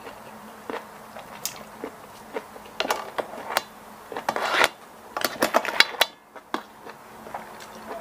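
Close-up eating sounds: wet chewing and lip smacks on squid and rice, with wooden spoons clicking and scraping on a steel serving tray, in a string of short sharp sounds that come thickest in the middle.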